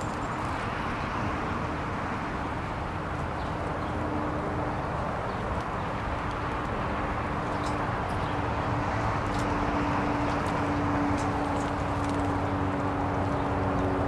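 Steady outdoor rumble with a low droning hum running through it, a little louder in the second half, and a few faint high ticks.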